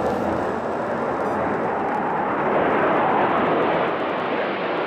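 Jet noise from a pair of Su-24 strike jets, each with two turbojet engines, flying past in formation. A steady roar that swells to its loudest about three seconds in, then eases off a little.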